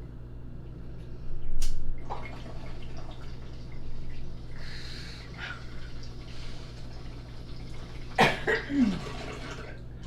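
A woman's stifled, breathy laughter in scattered outbursts, loudest about a second and a half in and again near the end, over a steady low electrical hum.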